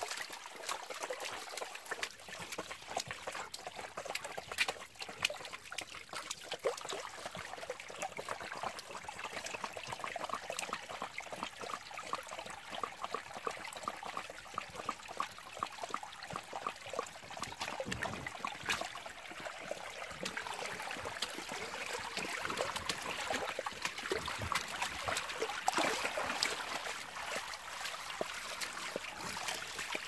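Shallow water trickling along a concrete channel, with many small splashes as golden retrievers wade through it.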